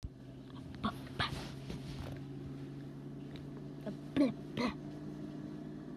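Four short, squeaky vocal noises with bending pitch, two close together about a second in and two more about four seconds in, over a steady low hum.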